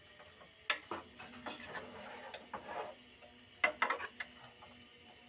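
Metal spoon scraping and knocking against the sides of an aluminium pot while stirring raw minced meat with spices, giving scattered sharp clicks with a cluster of louder knocks about three-quarters of the way through.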